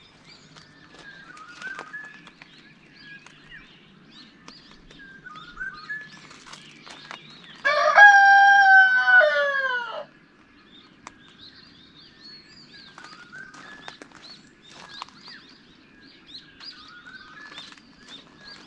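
A rooster crows once, a loud call of about two seconds whose pitch drops away at the end, over faint bird chirps.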